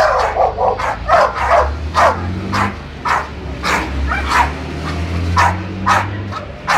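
Pit bulls barking at each other in a street dog-fight face-off, a run of sharp barks about two a second.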